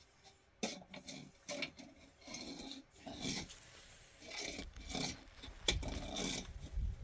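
An irregular series of short rasping scrape strokes, about a dozen, starting about half a second in.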